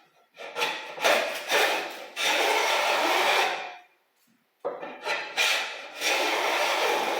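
Long-soled jointer hand plane cutting along a wooden board: a few short strokes, then a long, even stroke of about a second and a half, with the same pattern repeated after a brief pause.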